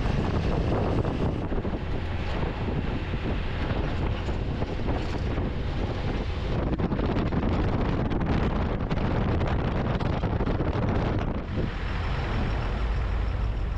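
Wind buffeting the microphone over a steady low engine rumble, the rumble growing heavier near the end.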